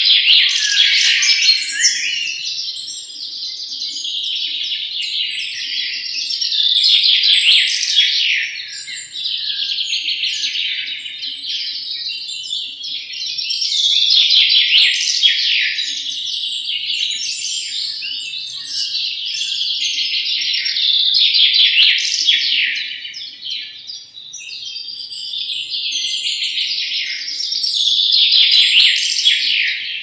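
European goldfinches twittering and chattering in a continuous, dense, high-pitched song, which swells louder about every seven seconds.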